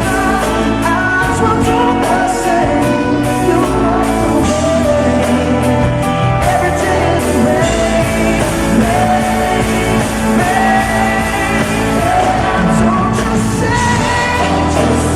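A live concert performance of a pop ballad, with a sung lead vocal over a full band.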